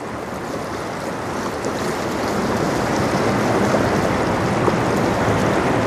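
Steady rushing wash of wind and choppy river water, slowly getting louder.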